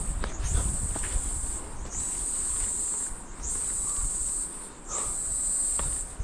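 Insects calling with a high, shrill buzz, repeated in phrases about a second and a half long, each opening with a brief rise, with short breaks between them. Footsteps on a stony path sound beneath.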